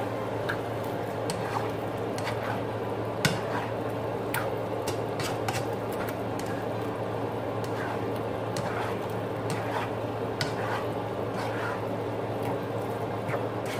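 Mung beans and sautéed garlic, onion and tomato being stirred in a hot pan: a steady sizzle with the spoon scraping and clicking against the pan every second or so.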